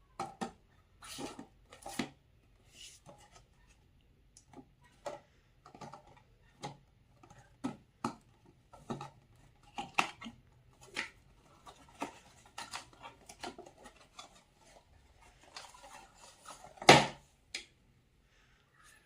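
Hands unboxing toys: irregular clicks, taps and light scrapes of packaging and small pieces being handled. There is a stretch of rustling near the end, with one louder knock.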